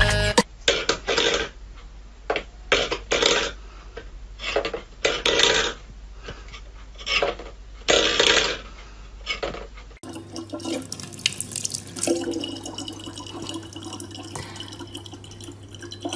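Stainless-steel pet bowls clanking and scraping on a wooden floor in short bursts as a cat paws at them. About ten seconds in this gives way to a tap running a thin stream of water into a plastic bottle.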